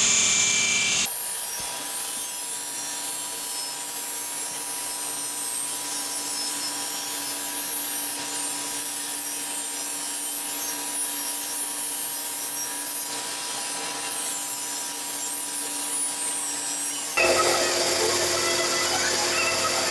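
Workshop grinding machinery running steadily: an even hiss with a constant hum. About three seconds before the end it changes abruptly to a louder, harsher grinding from a belt grinder, with a steel knife blade held against the belt.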